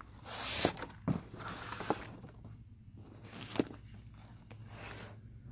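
Cardboard packing and a plastic-sleeved art board being handled and turned: a few short rustles and scrapes, with a sharp knock about three and a half seconds in.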